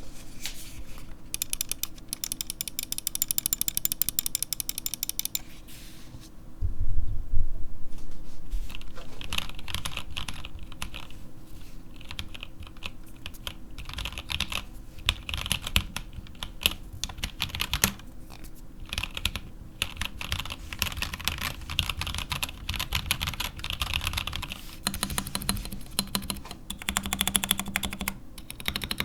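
Typing on a Keyhome KH61 mechanical keyboard with stock, unlubed Gateron Black linear switches and SA-profile ABS keycaps: a steady stream of keystroke clacks, with a very fast run near the start. A brief low rumble about six and a half seconds in is the loudest moment.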